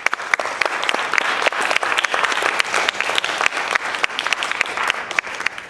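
Audience applauding: a dense run of hand claps that starts suddenly and dies down near the end.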